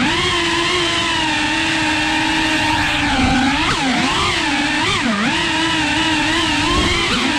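Tiny-whoop FPV drone's motors and props whining, the pitch holding steady and then dipping and swinging up and down with the throttle a few times in the second half.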